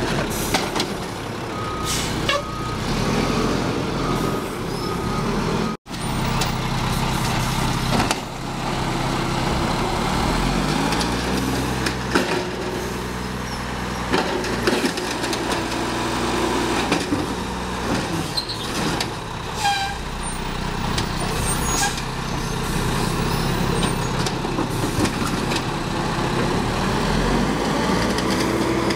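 Mack LE garbage truck's diesel engine revving up and down repeatedly to drive the hydraulics of its Amrep automated side-loader arm as it grips, lifts and dumps recycling carts, with clanks of the carts and arm. A run of short beeps sounds a few seconds in.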